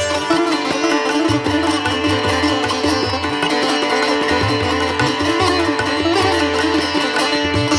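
Instrumental Indian music: a plucked-string melody bending in pitch over a steady drone, with low drum beats underneath.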